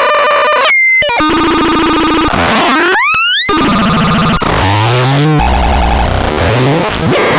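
Synthesizer making harsh, noisy electronic tones that change every second or so: buzzing pitched drones, fast upward pitch sweeps and falling glides, with a low buzzing drone a little past the middle.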